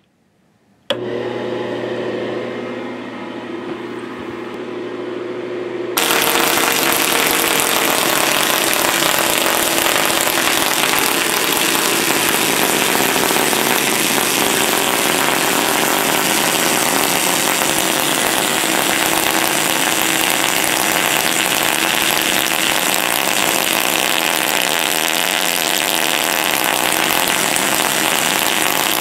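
Homemade Cockcroft-Walton high-voltage multiplier: a steady electrical hum at first, then about six seconds in a sudden, loud, continuous buzzing crackle of high-voltage sparks and arcs discharging from its top terminal.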